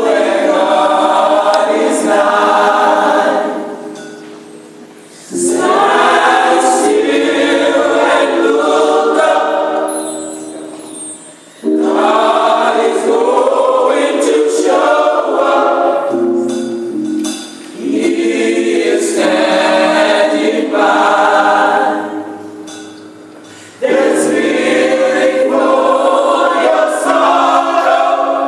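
Gospel choir singing in phrases several seconds long, each followed by a brief pause.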